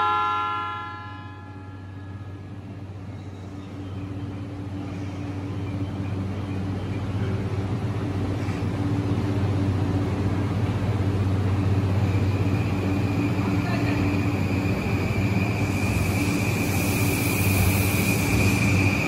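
JR East E235-1000 series electric train starting to pull away from the platform. A chime dies away in the first second or two. A steady low hum then grows louder, and about twelve seconds in a high inverter whine joins it and strengthens as the train moves off.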